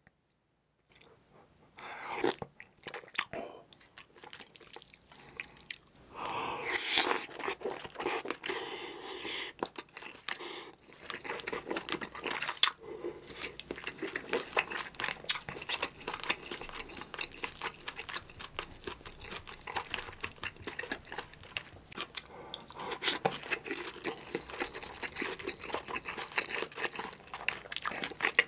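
Close-miked eating of spicy kimchi stew with spam and tuna: wet chewing and crunching, with irregular clicks. It starts after about two seconds of near quiet.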